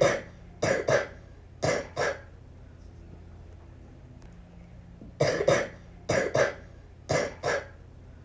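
A little girl coughing with the flu: two fits of short coughs, mostly in quick pairs, with a pause of about three seconds between the fits.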